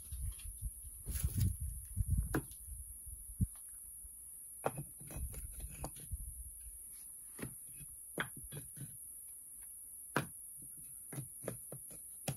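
Dry twigs and brush snapping and crackling in irregular sharp clicks, with low rumbling handling noise in the first two seconds or so, over a steady high-pitched hiss.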